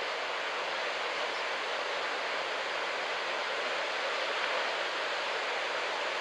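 Steady wash of surf breaking on a sandy beach, an even hiss with no separate crashes standing out.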